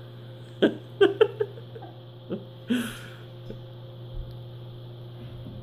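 Microwave oven running with a steady low hum, heating a bowl of milk-casein curds. A handful of sharp clicks and knocks come in the first three seconds.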